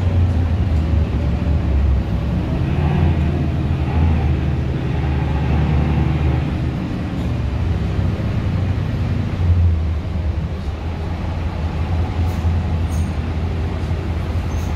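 Steady low drone of a Mercedes-Benz O530 Citaro city bus's diesel engine and drivetrain with road noise, heard from inside the passenger cabin while the bus is moving. A brief louder bump comes about nine and a half seconds in, and the drone is a little weaker after it.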